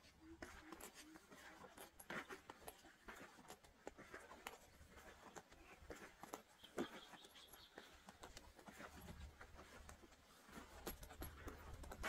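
Near silence with faint scattered clicks and rustles, and a brief faint high tone a little past the middle.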